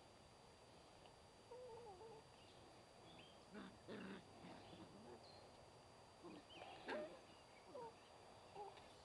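Puppies faintly whining and yipping as they play, in a handful of short calls that bend in pitch, the loudest about seven seconds in.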